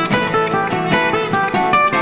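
Acoustic guitar music: an instrumental passage of quickly picked notes, without vocals.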